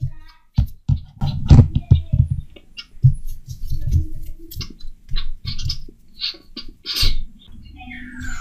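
Music made of sharp, irregular percussive hits, with a falling swoop near the end.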